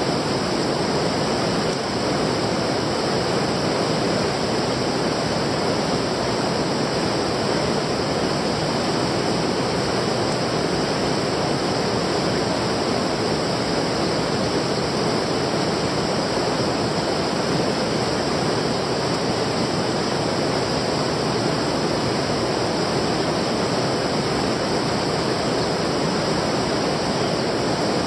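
Steady rush of flowing stream water, an even hiss that does not change.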